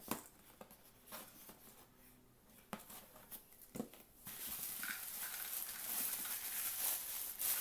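A few light knocks and clicks of small bottles and cardboard packaging being handled, then from about four seconds in a continuous crinkling rustle of a black plastic bag being pulled out and unfolded.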